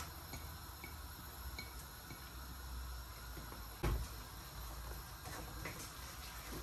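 Quiet kitchen noises over a low steady hum, with a few faint ticks and one sharp knock of cookware about four seconds in.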